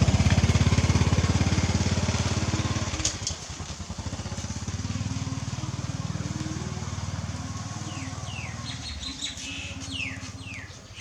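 A small engine, like a motorbike's, running with an even rapid beat: loud for the first three seconds, then quieter until near the end. A few short, high, falling chirps sound near the end.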